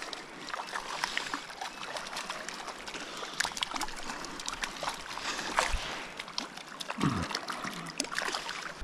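Irregular splashing and dripping water close to the microphone as a hooked trout is brought in and handled, over a faint steady rush of river water.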